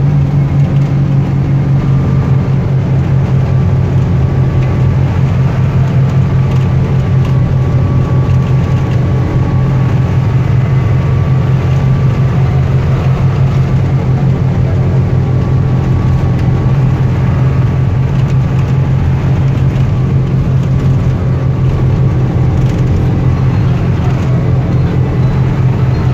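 Steady diesel bus engine drone and road noise, heard from inside the cab of a bus cruising on the highway. It holds a constant low hum with a faint whine above it.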